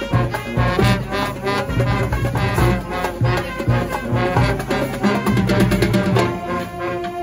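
A high school marching band playing in the stands: saxophones, trumpets and sousaphones carry an upbeat brass tune over a steady beat.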